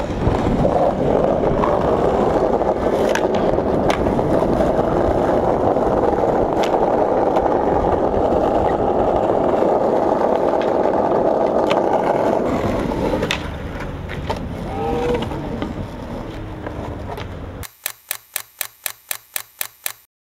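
Skateboard wheels rolling loud on asphalt, with a sharp click now and then; the rolling gets quieter about two-thirds of the way through. Near the end it gives way to a rapid, even clicking, about five a second, that stops suddenly.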